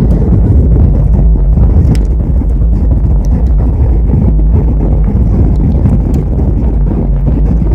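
Steady, loud low roar of a jet airliner's cabin on descent: engine and airflow noise coming through the fuselage beside the window.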